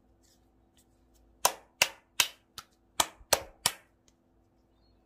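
Palms slapping together as they pat a small lump of cookie dough: a quick run of about eight sharp slaps, roughly three a second, starting about a second and a half in.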